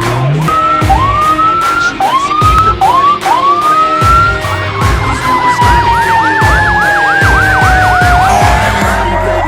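Fire truck sirens on a code 3 response. A siren is whooped up in about five short rising bursts. Then comes a long, slowly falling tone with a rapid up-and-down yelp sounding over it.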